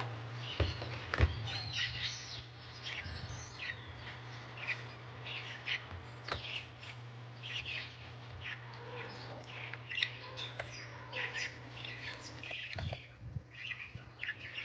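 Small birds chirping in short, repeated calls over a steady low hum, with a few sharp clicks, the loudest about a second in.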